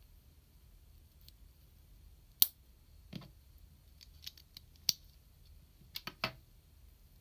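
Small plastic parts of an SMP GaoKing model kit clicking and snapping into place as they are fitted together by hand. The clicks come singly: the sharpest one about two and a half seconds in, smaller ticks after it, and a quick cluster of three near the end.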